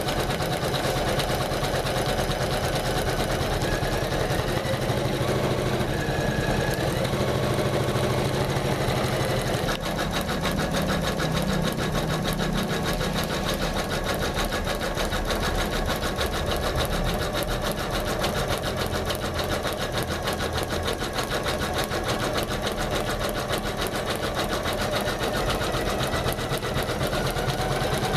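Janome MC500E computerized embroidery machine stitching steadily, a fast even run of needle strokes with a slight change in its rhythm about ten seconds in.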